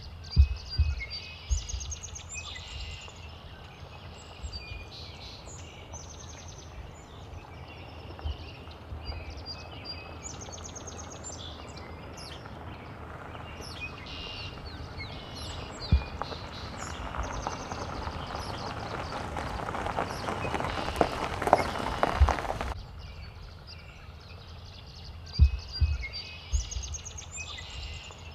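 Small songbirds chirping and singing in repeated short high phrases over a steady outdoor background, with scattered low thumps. A rush of noise swells over several seconds and cuts off abruptly about three-quarters of the way through.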